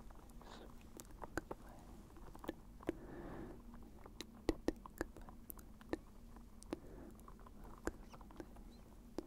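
Soft, close-miked ASMR clicking sounds: short, sharp clicks scattered irregularly, about one or two a second, with a brief soft hiss about three seconds in.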